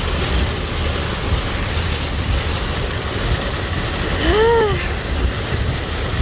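Steady noise of a car driving in rain, heard from inside the cabin: a low rumble of engine and tyres on a wet road under a hiss of rain. About four seconds in, a brief tone rises and falls once.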